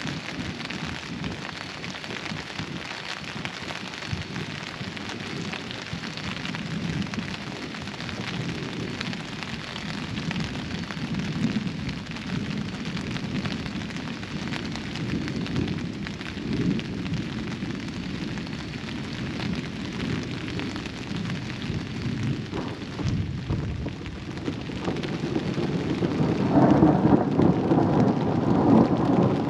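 Steady rain falling, with low rolling thunder rumbling underneath. The thunder swells louder over the last few seconds.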